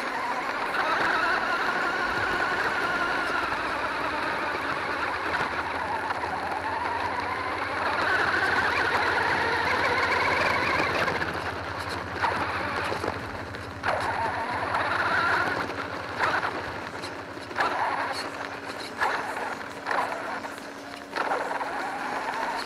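Onboard sound of a radio-controlled monster truck driving on gravel: its motor and drivetrain whine, rising and falling in pitch with the throttle, over tyre and gravel noise. In the second half it comes in short, sharp bursts about every second or two.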